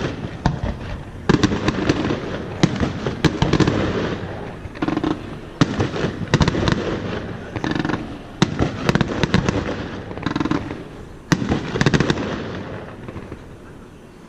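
Fireworks display: a rapid series of sharp bangs and crackles with rolling booms, several bursts close together, dying away near the end.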